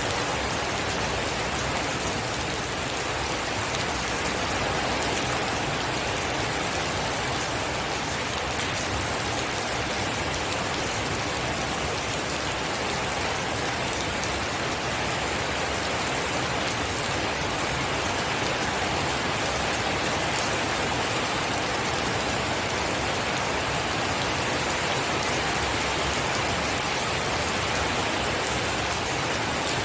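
Steady rain falling: an even hiss with scattered sharper drop hits.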